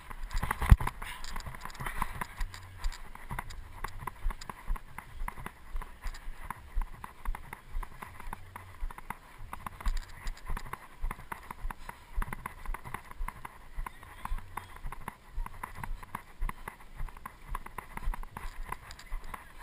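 Footsteps on a dry grass path, with a handheld GoPro jostling and rubbing in the hand: a steady run of short knocks in step with walking, and one sharper knock about a second in.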